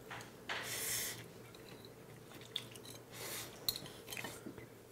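Two men eating jjapaghetti black-bean noodles: two airy slurps, about half a second in and again past three seconds, with chewing and a few light clicks of utensils against bowls.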